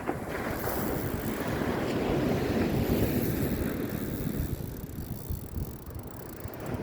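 Wind buffeting the microphone over surf on the beach, a noisy rush that swells about two seconds in and eases off after about five seconds.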